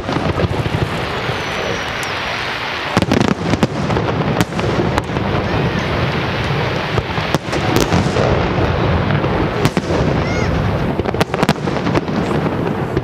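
Aerial firework shells bursting in a salute display: a run of sharp bangs at irregular intervals over a steady rumble, coming thicker from about three seconds in.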